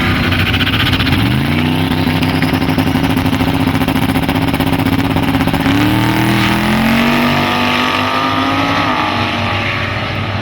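Street-class drag cars making a pass down the strip. Engine note rises about a second in and holds steady at full throttle. A second engine note climbs from about six seconds in and drops away near nine seconds.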